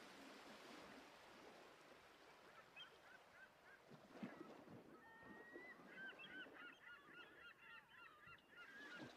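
Faint, many short chirping and honking bird calls that overlap, growing denser about two-thirds of the way in.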